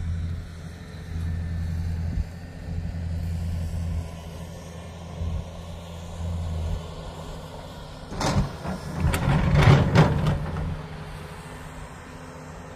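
Heavy vehicle engine running steadily with a low hum, then a louder, noisy stretch of about two and a half seconds, starting about eight seconds in.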